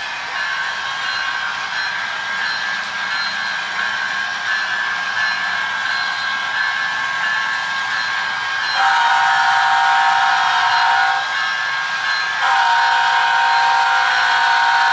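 HO-scale model diesel locomotive's DCC sound decoder playing a steady diesel engine sound through the model's small speaker. About nine seconds in, it sounds two long multi-tone horn blasts with a short gap between them, as the locomotive approaches a grade crossing.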